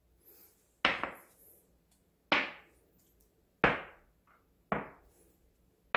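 Small glass prep bowls being set down on a silicone pastry mat, five sharp knocks spaced about a second or so apart.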